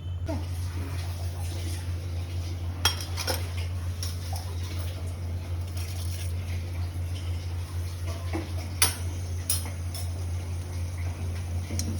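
Metal utensils clinking against steel pots and plates, a handful of separate sharp clinks with the loudest about nine seconds in, over a steady low hum.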